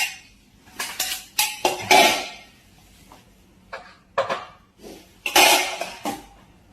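A string of sharp clattering knocks of hard objects striking and ringing briefly, loudest about two seconds in and again just past five seconds.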